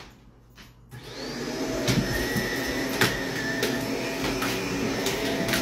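Upright vacuum cleaner coming on about a second in, its whine rising, then running steadily as it is pushed over the rug. Several sharp clicks and knocks sound over the motor.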